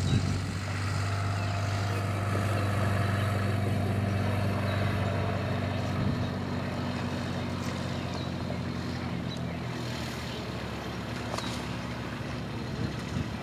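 A low, steady engine hum, like a motor vehicle idling, which weakens about eight seconds in.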